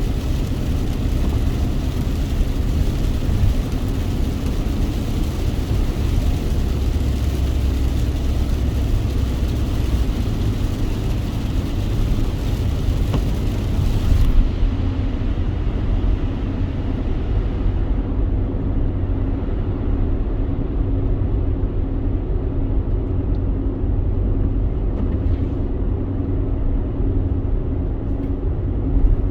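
Steady low road rumble of a car driving in the rain, with an even hiss above it. The hiss drops away abruptly about halfway through, leaving a duller rumble.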